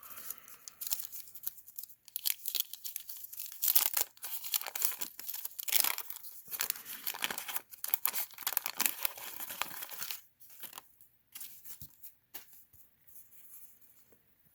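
Wax-paper wrapper of a 1987 Garbage Pail Kids sticker pack being torn open and crinkled: a dense run of tearing and crackling for about ten seconds, then fainter, scattered rustling near the end.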